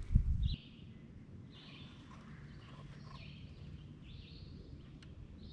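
Quiet outdoor ambience on the water: a faint steady low rumble with faint bird calls recurring about once a second. A brief low thump, the loudest sound, comes right at the start.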